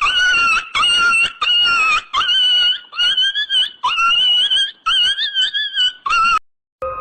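High-pitched crying sound effect: a run of short, sobbing wails, about two a second, each held at a steady pitch. It stops shortly before the end.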